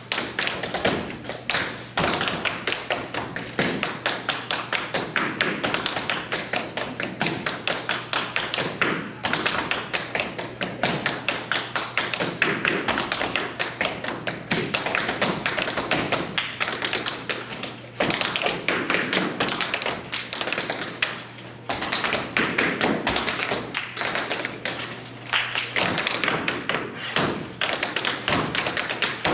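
Tap shoes striking a wooden stage floor in an a cappella tap routine with no music: dense, rapid runs of taps mixed with heavier stamps, broken by a few brief pauses.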